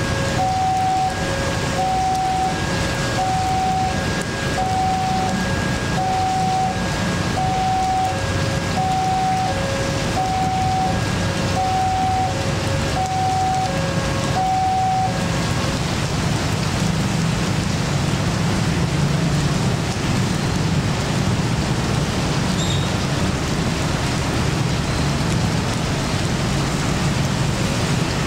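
A railway level-crossing warning bell sounds a repeating electronic ding, about one a second, over steady heavy rain. The bell stops about 15 seconds in, as the crossing opens, leaving the rain and a low rumble of traffic.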